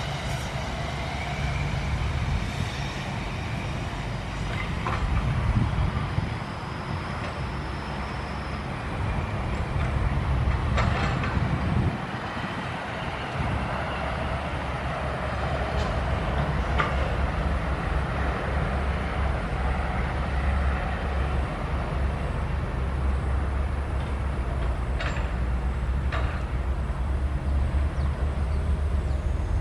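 SANY SY135F hydraulic excavator's diesel engine running under working load, with the low engine sound easing briefly about halfway through. A few sharp metallic knocks come through it at scattered moments.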